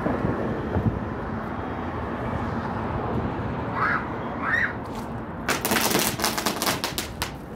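A string of firecrackers crackling in a fast run of sharp pops for about two seconds, starting a little past halfway in, over a steady background rumble. Two short high squeals come just before the crackling.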